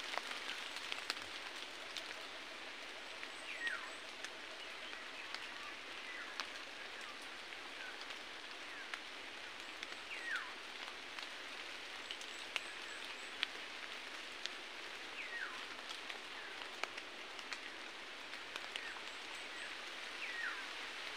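Forest ambience: a steady hiss with a bird's descending whistle repeated every two to three seconds, and scattered light ticks.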